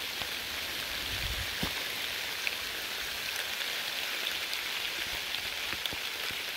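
Steady rain falling, with scattered sharp ticks of individual drops.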